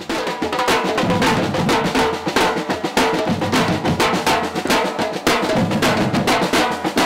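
Street drum band playing snare drums and bass drums together in a fast, steady rhythm, with heavy beats a little under twice a second.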